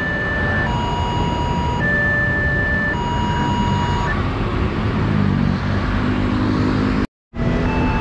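Railway level-crossing warning alarm: two electronic tones alternating about once a second over a steady rumble of road traffic. The alarm stops about four seconds in and a low drone builds. Just after seven seconds the sound cuts out briefly, then the alarm starts again at a different pitch.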